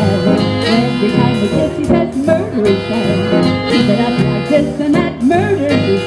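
Live swing band playing a 1940s swing song, with saxophone and drums and a sung vocal line at times.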